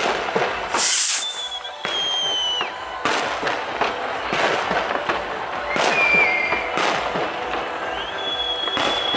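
Fireworks shells bursting overhead, with about seven sharp bangs and a loud crackling burst about a second in. High whistling tones sound over them: one falling in pitch around two seconds, and a long steady one near the end.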